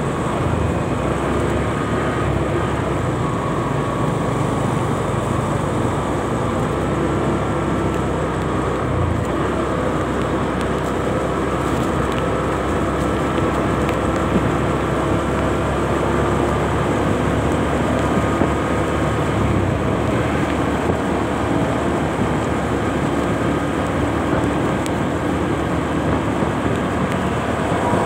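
Steady rush of riding a motorcycle through city traffic: its engine, tyres on the wet road and wind noise blended into a constant, even roar, with surrounding traffic mixed in.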